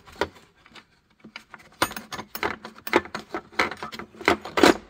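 Small metal timing tools, locking pins and a flywheel lock from a timing belt kit, clicking and knocking against each other and their case as they are handled. The clicks come in an irregular run, with a short pause about a second in.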